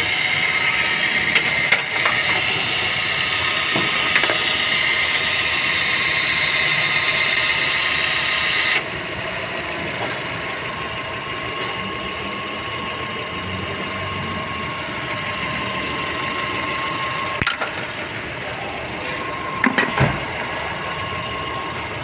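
Car engine idling with the air conditioning on, giving a steady grinding whine with hiss from the engine bay, the fault being looked for. About nine seconds in, the higher hiss and whine drop away abruptly, leaving a quieter steady running sound with a faint tone and a few clicks near the end.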